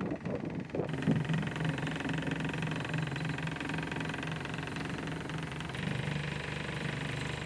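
Sailboat's inboard diesel engine running steadily at an even speed, its tone changing slightly near the end.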